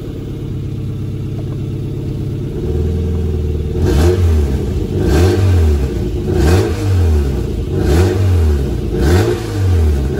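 Freshly rebuilt Mercedes 190E Cosworth 16-valve four-cylinder engine idling for a couple of seconds, then blipped five times, the revs rising and falling about every second and a half.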